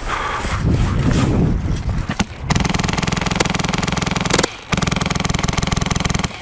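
Polar Star Fusion Engine MK46 airsoft light machine gun firing long full-auto bursts: a fast, even mechanical rattle starting about two and a half seconds in, with a brief break before a second long burst.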